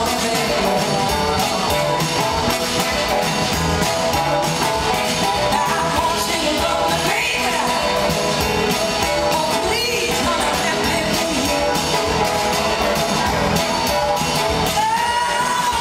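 Live blues-rock band playing: a woman singing over electric guitar, drums and a horn section, with a steady driving beat, heard from the audience in a concert hall.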